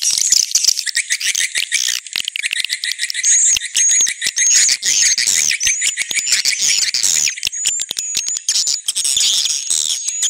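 Swiftlet call recording: a dense chorus of swiftlets twittering, with fast clicking trills throughout and a run of short, repeated high chirps from about three seconds in. This is a lure call played to draw swiftlets into a nesting house.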